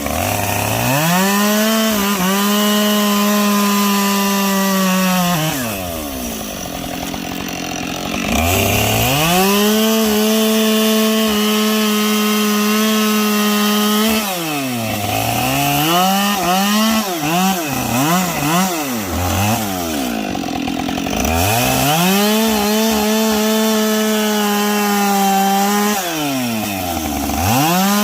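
Two-stroke chainsaw bucking logs: it revs to full throttle and holds steady for several seconds at a time, dropping back and revving up again about four times, with a run of short throttle blips in the middle.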